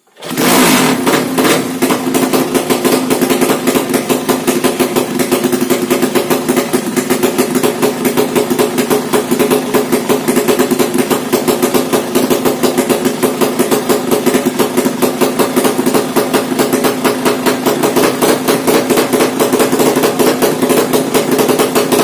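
Yamaha Jupiter drag-bike engine, a four-stroke single bored to 200cc, fires up and settles into a steady idle, pulsing rapidly and evenly through its open racing exhaust.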